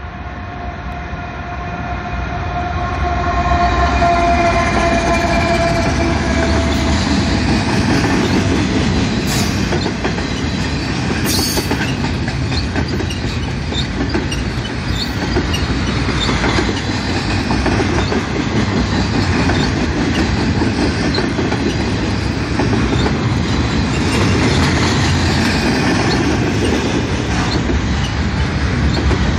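Freight train passing: the lead locomotive's horn sounds a chord that fades out over the first several seconds as the locomotives draw level, then the steady rumble of the container cars with their wheels clacking on the rails, and two sharp clacks about ten and twelve seconds in.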